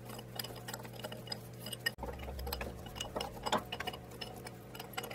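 Small metallic clicks and clinks from an open-end spanner working steel bolts out of an aluminium aircraft engine-mount casing on a steel workbench, over a steady low hum.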